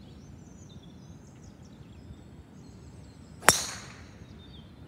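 A golf club striking a ball on a tee shot: one sharp, loud crack about three and a half seconds in, with a short ringing tail. It is a clean, well-struck contact, 'tellement pur'. Faint birdsong runs in the background.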